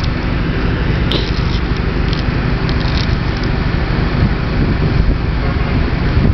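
Off-road buggy engine running steadily while the vehicle is stuck in a muddy rut on a tow rope, with a few faint clicks or scrapes about one to three seconds in.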